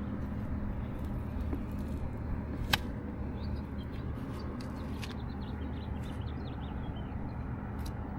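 Steady low mechanical hum of rooftop HVAC equipment running, with one sharp click a little under three seconds in and a few faint bird chirps in the middle.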